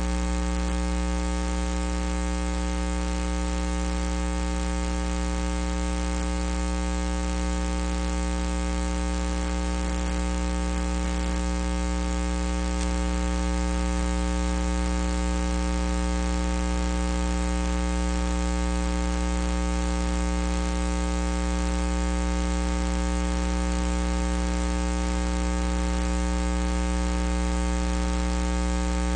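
Steady electrical mains hum: a low hum with a buzz of many even overtones over a constant hiss, unchanging throughout, with no other sound.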